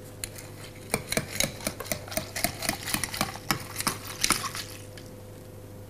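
Bar spoon stirring crushed ice in a low tumbler: quick clinks of the spoon and ice against the glass, about five a second. They start about a second in and stop at about four and a half seconds.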